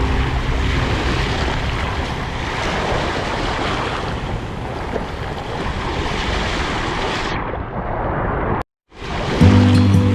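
Sea waves washing on the shore in a steady, even roar of surf, with wind on the microphone. About eight and a half seconds in it cuts off abruptly, and near the end music with steady held notes begins.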